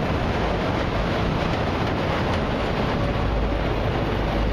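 A long, slow freight train of autorack cars rolling past, its wheels on the rails making a steady rumble.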